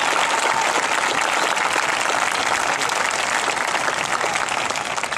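Audience in the stands applauding, a dense steady clapping that begins to fade near the end.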